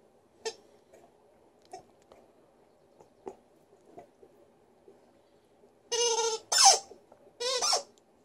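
Squeaky rubber ball toy being chewed by an Alaskan Malamute: a few faint squeaks and clicks, then from about six seconds in three loud, high squeaks in quick succession.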